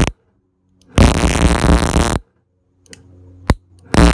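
Motor-driven ignition coil and module test bench switched on and off: a loud, harsh buzz of the spinning rig and firing coil stops abruptly, runs again for about a second, stops, then starts up again near the end. A faint low hum and a single sharp click sound in the second pause.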